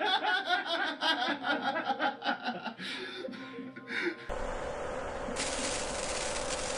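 People laughing and chuckling for about four seconds. Then it cuts suddenly to a steady hiss with a faint hum, the sound bed of a title intro, growing brighter about a second later.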